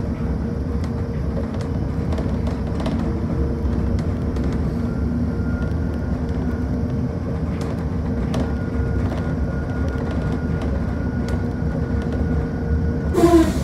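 Electric bus in motion, heard from inside the cabin: a steady low rumble from the road with a constant hum and scattered light rattles. A brief louder noise comes near the end.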